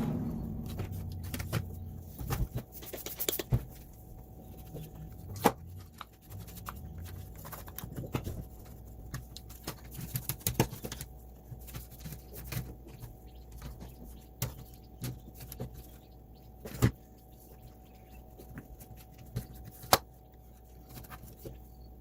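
Irregular clicks and knocks of plastic robot-vacuum parts being handled and worked on, a few of them sharper and louder, over a faint steady hum.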